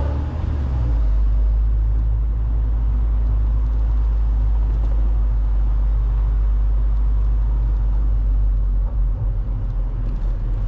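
MG TF sports car's engine and exhaust running steadily as it drives, heard from inside the open cabin with the roof down: a deep, even drone.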